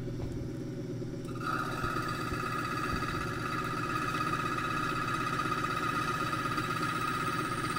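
A motor running steadily; about one and a half seconds in, the milling cutter bites into the key blank and a steady high whine starts and holds, as the top ridge of the blank is milled down slowly.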